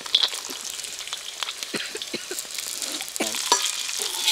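Cashews and almonds sizzling in hot ghee in an iron kadai, with a burst of sizzle just after the start as more nuts drop in. Scattered clinks and scrapes come from a ladle stirring them against the pan.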